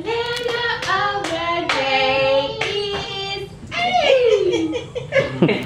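Singing of a tune with sustained notes, accompanied by hand claps.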